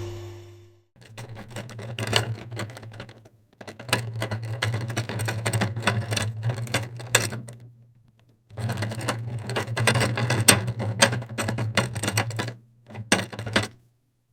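Roller-wheel suitcase being pulled along a hard floor: a low rolling rumble with rapid clicking from the wheels. It runs in three long passes, then a short one near the end.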